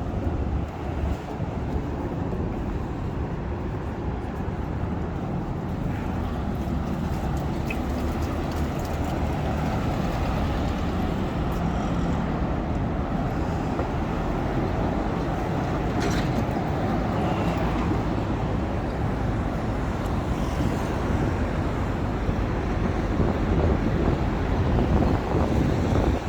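Steady city road traffic noise: cars and other vehicles running past on the street.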